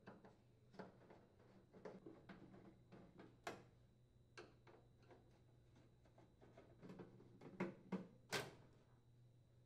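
Faint, scattered clicks and ticks of a Phillips screwdriver unthreading the mounting screws from a microwave oven's bottom panel, with a few louder clicks near the middle and end.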